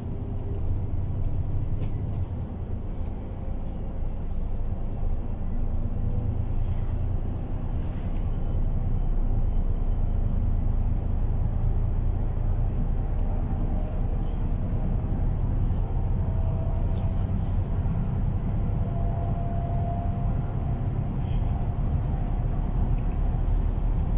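Inside a MAN Lion's City Ü city bus under way: a steady low rumble of engine and road noise. A faint whine slowly rises in pitch in the second half.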